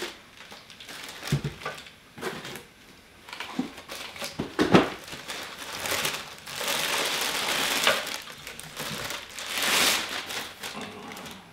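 Clear plastic bag crinkling and rustling as a car subwoofer is lifted out of its cardboard box and unwrapped. A few knocks sound in between, the loudest about five seconds in.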